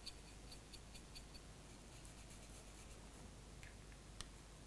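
Faint, quick strokes of a paintbrush working weathering powder onto a plastic model locomotive's bodyside, about four or five strokes a second for the first second and a half, then a little scratching and a single sharp click near the end.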